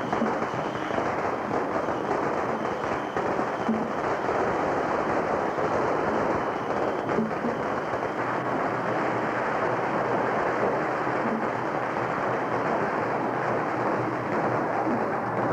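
A long string of firecrackers going off, a dense, unbroken crackle of small bangs.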